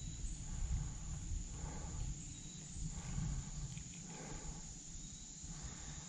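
Outdoor ambience: a fluttering low rumble of wind on the microphone, with a steady high-pitched drone and a few faint soft rustles.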